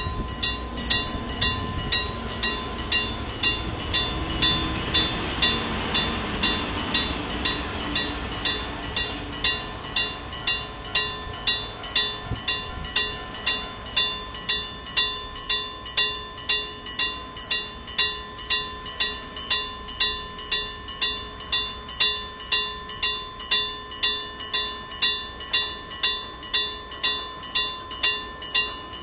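Old mechanical level-crossing bell struck by a hammer in a steady clang-clang rhythm, about two strikes a second, each strike ringing on. A train's rumble sits under the first eight seconds or so, then fades.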